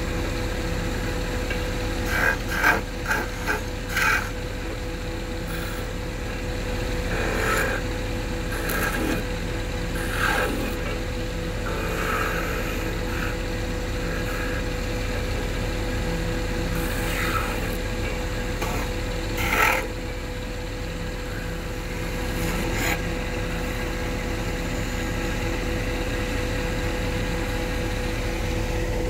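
Wood lathe running with a steady hum, with short scraping strokes at intervals as a tool or abrasive is worked against the spinning wood. The strokes cluster in the first few seconds and recur every few seconds after that.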